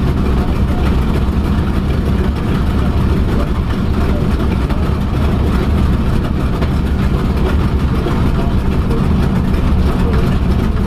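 The twin Wright R-2600 fourteen-cylinder radial engines of a B-25 Mitchell bomber running steadily at low power with the propellers turning, as the bomber rolls along the runway.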